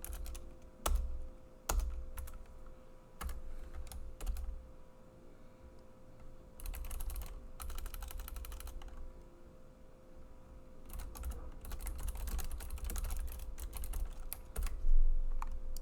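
Typing on a computer keyboard: a few separate key clicks at first, then fast runs of typing about halfway through and again near the end. A faint steady hum lies beneath.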